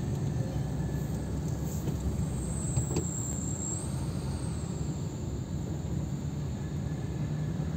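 Car driving slowly, heard from inside the cabin: a steady low rumble of engine and tyres, with one light click about three seconds in.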